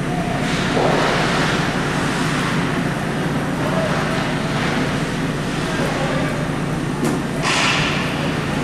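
Ice hockey game in a rink: two hissing scrapes of skates on the ice, about a second in and near the end, with a sharp crack just before the second. A steady low rink hum runs underneath.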